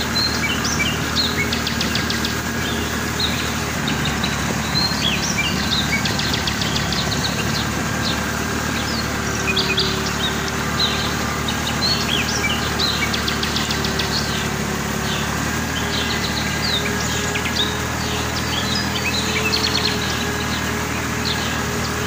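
A tractor engine running steadily as a low hum, with many birds chirping and trilling over it.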